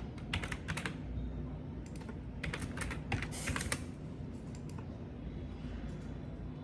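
Typing on a computer keyboard: a quick run of key clicks just after the start and a longer run around the middle, with fainter scattered taps later. A steady low hum runs underneath.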